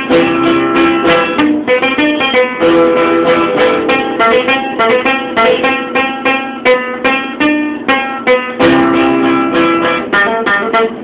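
Acoustic guitar played solo: a picked melody of quick single notes over ringing bass notes, without singing.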